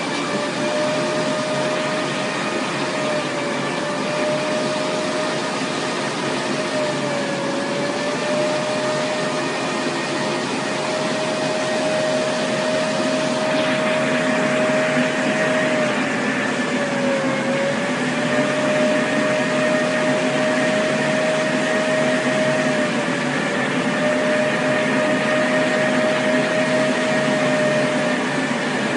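Laser cutter running: a steady whir of fans and blower, with a steady mid-pitched tone that dips briefly in pitch a few times.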